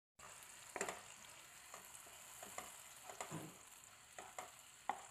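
Sliced garlic and tomato puree sizzling in oil in a nonstick frying pan, with a spatula scraping and tapping against the pan every second or so as it is stirred.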